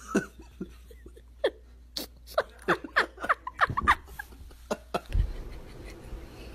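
Cat giving a quick series of short, high calls that slide down in pitch, about a dozen in two seconds, starting about two seconds in. A low rumble comes in near the end.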